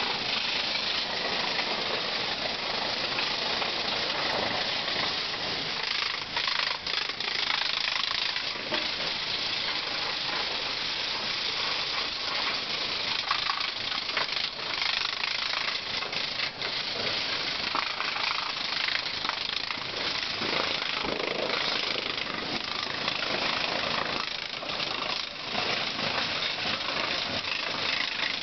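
High-pressure water jet at 60 bar spraying a bulldozer's steel crawler tracks: a steady hiss and spatter of spray, with brief dips now and then as the jet moves.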